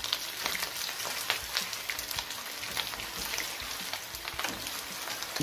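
Raw köfte meatballs shallow-frying in sunflower oil in a pan as more are added: a steady sizzle full of small crackles and pops. This is the quick pre-fry that browns the outside while the inside stays raw.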